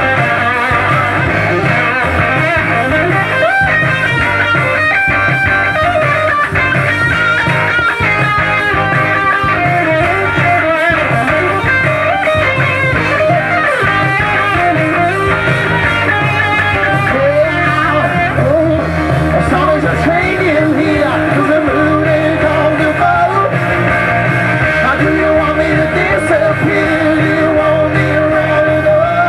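Live rock band playing an instrumental stretch with no vocals, a guitar leading with bending notes over steady bass.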